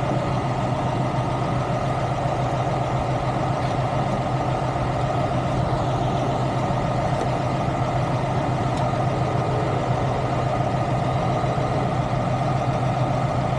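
A heavy truck engine idling steadily, an even low hum.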